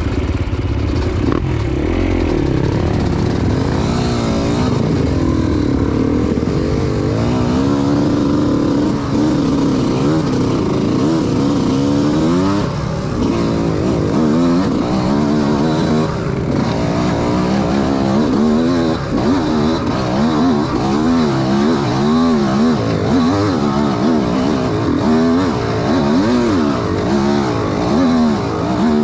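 Dirt bike engine revving up and down over and over while being ridden on a trail, its pitch rising and falling roughly once or twice a second.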